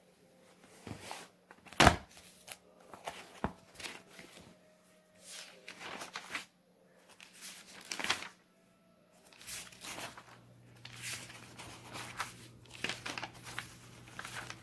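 Drawing paper and a spiral sketchbook being handled: sheets rustling and pages flipping in a string of short bursts, with a sharp knock about two seconds in. A faint low hum runs underneath.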